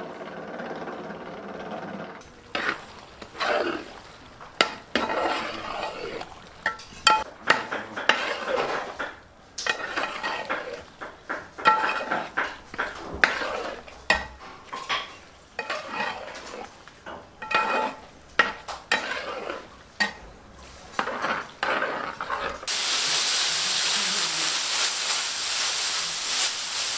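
An electric dough mixer hums briefly. Then a metal spatula stirs and scrapes a pan of sizzling beef fry in quick, uneven strokes. Near the end a steady hiss takes over.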